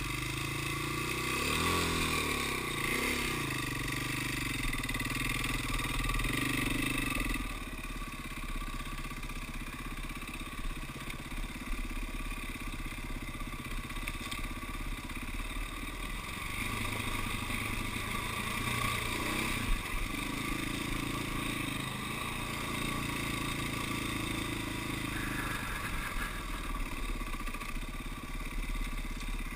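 KTM dirt bike engine running while riding, its pitch rising and falling as the throttle is opened and closed. One sharp knock stands out about two-thirds of the way through.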